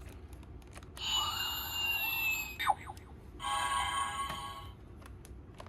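Electronic sound effects from the DX Gochipod toy's built-in speaker: a slowly falling tone, a quick downward swoop, then a held electronic chord of about a second.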